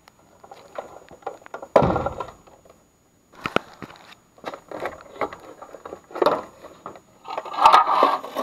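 Handling noise from removing a plastic condensate pump: PVC drain pipes pulled out of its inlets, with scattered clicks, scrapes and knocks and a heavier thump about two seconds in.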